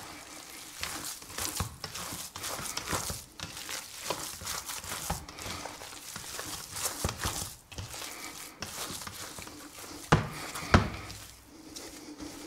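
Hands kneading minced pork, beef and fat with spices in a stainless-steel bowl, making irregular wet squelching and rustling. Two louder thumps come about ten seconds in.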